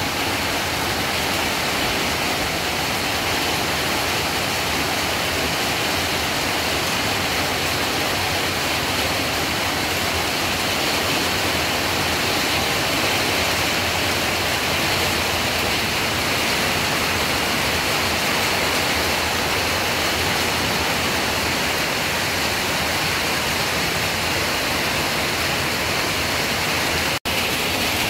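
Heavy rain falling steadily, a dense even hiss, which cuts out for an instant about a second before the end.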